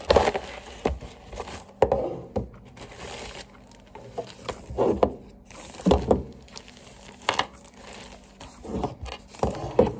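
Thin plastic packaging crinkling and rustling on and off as a small handheld fan is unwrapped from its bag and box.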